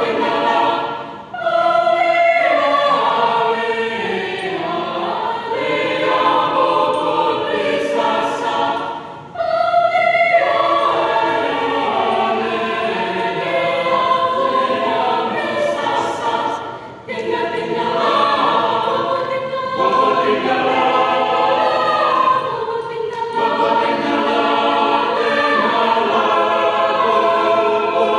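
Mixed-voice university choir singing in parts under a conductor, with brief breaks between phrases about every eight seconds.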